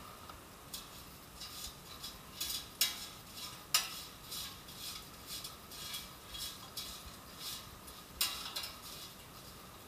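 Metal tongs scraping and clinking against the air fryer's non-stick basket while tossing French fries: irregular clicks and scrapes, several a second, loudest about three, four and eight seconds in.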